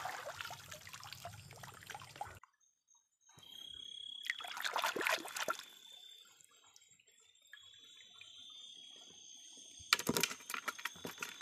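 Water splashing and dripping in a shallow stream as a caught shrimp is lifted out by hand, loudest about halfway through. A steady high insect chirp runs behind it, and a few sharp clicks and knocks come near the end.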